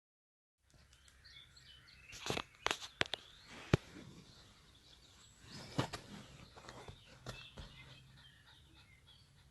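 Outdoor background noise with a handful of sharp clicks or taps, several close together about two to four seconds in and another near six seconds, over faint high chirps.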